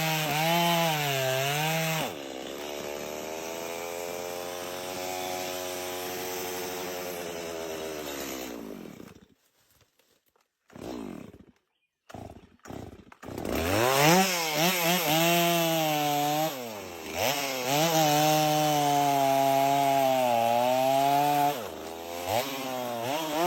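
Two-stroke chainsaw cutting wood, its engine pitch wavering and dipping under load. About two seconds in it drops to a lower, slowly falling note and dies away, goes almost silent with a couple of short bursts, then revs back up loud and cuts again, dipping and recovering near the end.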